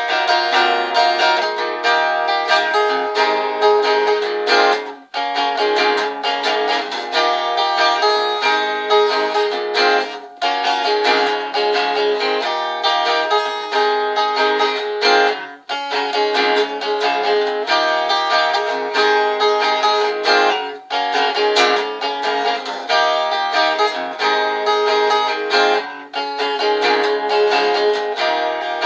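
Guitar playing an instrumental passage without vocals: a repeating picked and strummed chord pattern with a brief break about every five seconds.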